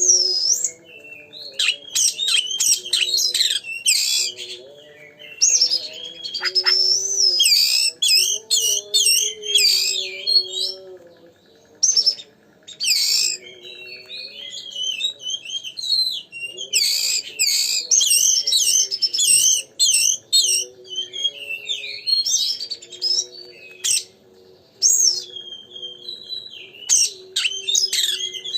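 Oriental magpie-robin (kacer) singing without pause: a fast, varied song of loud whistles, slurred phrases and sharp chattering clicks. This is the full, continuous song that is played to rouse other magpie-robins.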